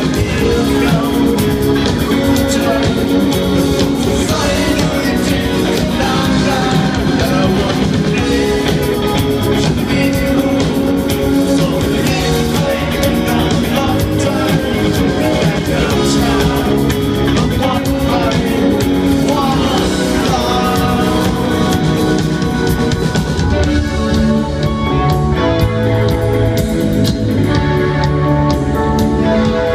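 Thai rock band playing live through a concert PA: a male lead vocal over electric guitar, bass guitar and drum kit. About three-quarters of the way through, the cymbals drop away and the band thins out.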